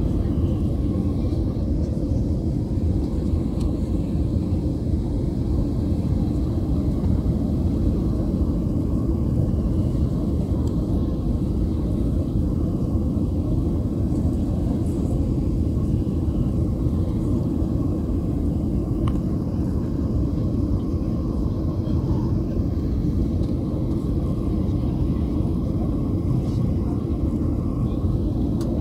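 Cabin noise of a Ryanair Boeing 737 airliner in its climb after takeoff: the jet engines and rushing air make a steady, deep noise that does not change.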